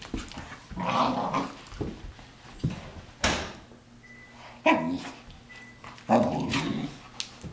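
German Shepherd puppy and adult German Shepherd growling and barking in rough play: a handful of short, harsh bursts with quiet gaps between them.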